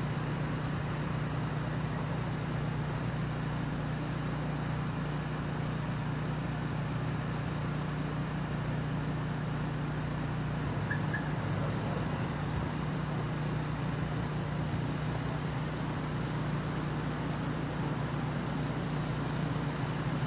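Steady low engine hum over outdoor road-traffic noise, with no distinct events.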